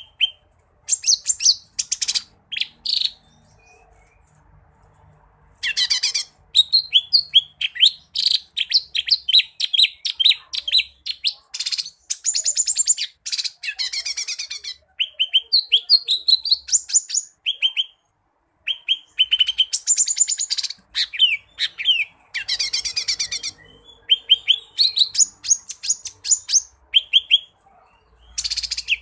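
A mini green leafbird (cucak ijo mini) singing loudly and continuously: rapid runs of sharp chirps and trills with harsh buzzy rattles mixed in, broken by two short pauses. This is 'gacor' song packed with 'isian', phrases mimicked from other birds.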